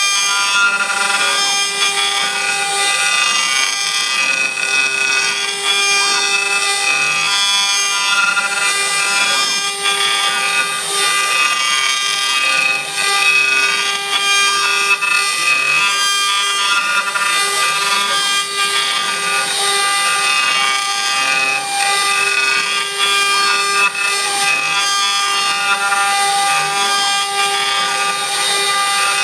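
Spindle of a small CNC router running with a steady high whine while its engraving bit cuts into a round workpiece turned on a rotary axis, giving a continuous rasping cut.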